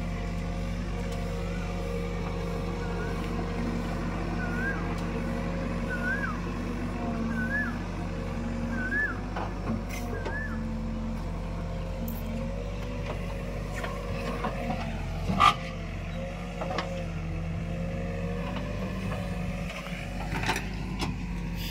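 Diesel engines of a JCB 3DX backhoe loader and farm tractors running steadily while the backhoe digs and loads earth. A short rising tone repeats about every second and a half through the first half, and a single sharp knock stands out about two-thirds of the way through.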